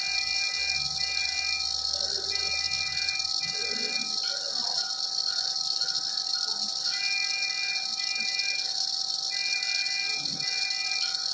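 Short high-pitched beeps in pairs, four pairs in all with a longer gap in the middle, over a steady hiss and hum.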